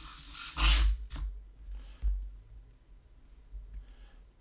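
Micro servo motors of a MeArm Pi robot arm whirring in short rasping bursts as a program moves the arm, loudest for the first second, then fainter brief stirrings.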